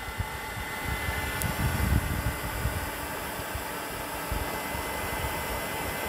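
Kemper 2000 W electric weed burner running: its fan blowing a steady hiss of hot air through the nozzle, with a faint steady whine. An uneven low rumble comes and goes in the first few seconds.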